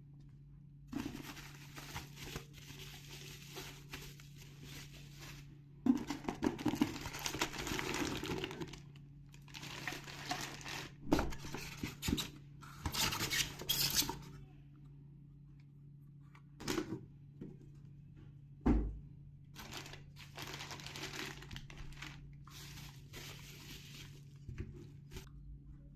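Packaging being handled and opened: bursts of tearing and crinkling of cardboard and plastic with a few knocks, and one sharp thump about two-thirds of the way through.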